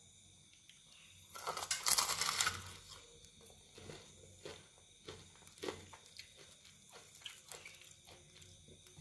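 Crispy flour-coated fried chicken crunching and crackling as it is squeezed and torn apart by hand, loudest for about a second starting a second and a half in, then scattered small crackles.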